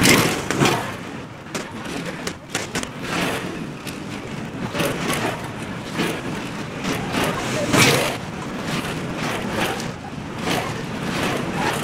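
Go-kart engine passing close at the start, then karts running around the track farther off, rising and falling as they come and go.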